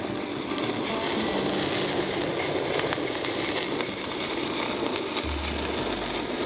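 Handheld gas torch flame hissing steadily as it sears and melts cheese on top of a stew.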